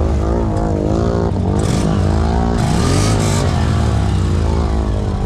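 Can-Am ATV engine running close by, its pitch rising and falling with small throttle changes, with a few brief hissing bursts around two to three seconds in.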